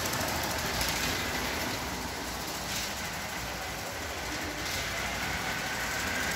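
Vintage 1980s Lego 12V electric train running on its track: a steady whirring rattle of the motor and wheels, with a faint motor whine.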